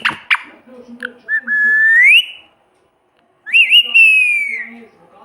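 Parrot whistling two clear notes: the first slides upward, and after a short pause the second starts with a quick flick and then slides slowly downward.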